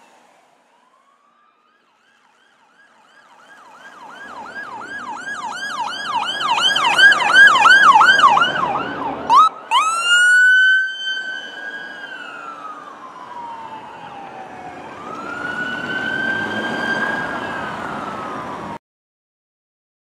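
Ambulance's electronic siren: a fast yelp that grows louder as it approaches, then, after a brief break about halfway through, a slow wail that rises and falls twice before cutting off suddenly near the end.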